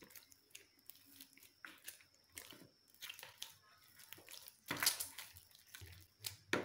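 Hands kneading soft, oiled chapati dough in a plastic basin: quiet, irregular sounds of the dough being pressed, folded and pulled, with a louder smack a little before five seconds in and another near the end.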